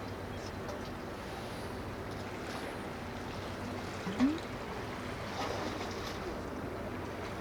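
Harbour ambience: a steady low hum under a wash of wind and water, with one short rising squeak about four seconds in.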